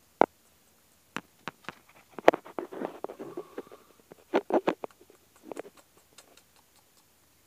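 An opossum rummaging among plastic bags and food packets: scattered sharp clicks and crinkles of plastic, a short spell of rustling about three seconds in, and another quick cluster of clicks a little later.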